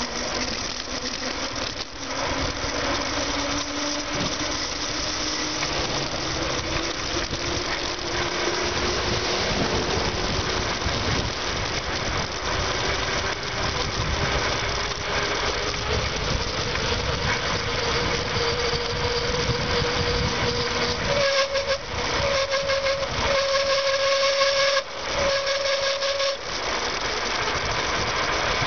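Wind rushing over the microphone of a bicycle on a fast downhill descent, with a thin whistling tone that slowly rises in pitch. About 21 to 26 seconds in, the whistle turns loud in several short broken pieces.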